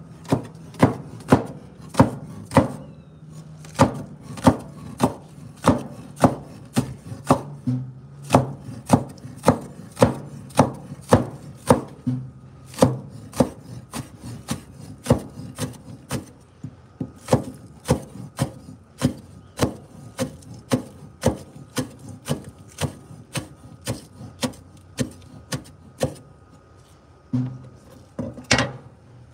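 Chinese cleaver chopping green onions on a wooden cutting board: a steady run of knocks of the blade on the board, about two a second, thinning out near the end.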